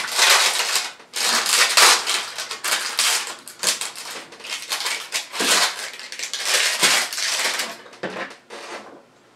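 Clear plastic wrapping crinkling and crackling in a run of loud bursts as it is pulled off a katana's handle, stopping near the end.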